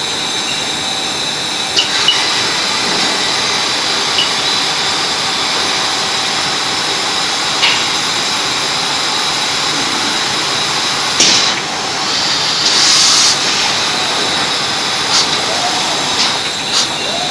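Automatic LED exposure machine for PCB production running: a steady machine and air noise with scattered sharp clicks, a knock about eleven seconds in, and a brief hiss shortly after.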